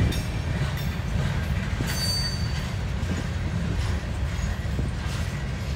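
CSX freight train's open-top hopper cars rolling past: a steady low rumble with a few wheel clacks over rail joints, and a brief high wheel squeal about two seconds in.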